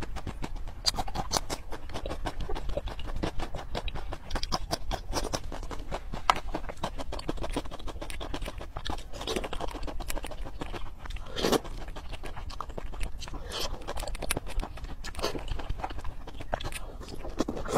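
Close-miked eating sounds: wet chewing and lip smacking on soft yellow peach halves and a green vegetable, full of irregular sharp clicks and pops, with a louder wet smack about eleven seconds in.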